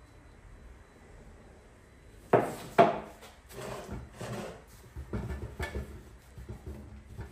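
Two sharp knocks as a wax tin and its lid are set down on the workbench, then a cloth rubbing mould-release wax into a 3D-printed plastic mould, with soft scuffs and light knocks as the mould shifts under the hands.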